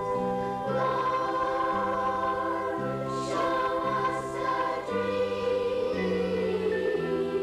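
Youth choir singing over an accompaniment whose bass steps to a new held note every second or so.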